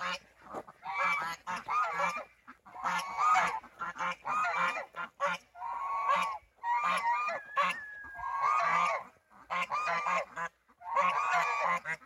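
A gaggle of domestic geese honking over and over in overlapping clusters with short pauses between them. They are warning honks at a person walking close behind them.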